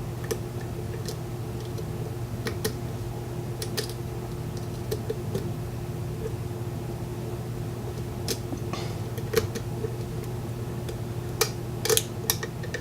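Scattered small metallic clicks of a lock pick working the pins of a Corbin Russwin mortise cylinder, irregular and a few seconds apart, with several close together near the end. A steady low electrical hum lies underneath.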